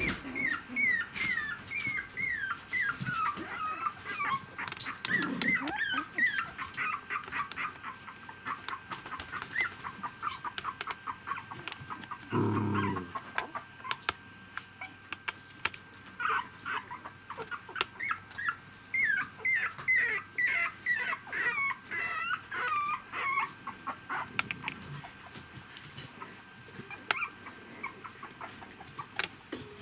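Three-week-old poodle puppy whimpering in long runs of short, high, falling squeaks, several a second, thinning out in the middle and again near the end. Scattered short clicks run throughout, and there is one brief low sound about halfway through.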